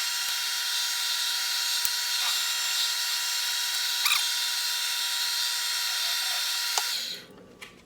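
Small metal lathe running through a facing cut: a steady motor and gear whine with a hiss of cutting and a few light clicks. It is switched off about seven seconds in and dies away quickly.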